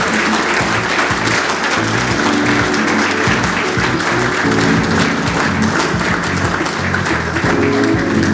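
An audience applauding steadily over walk-on music.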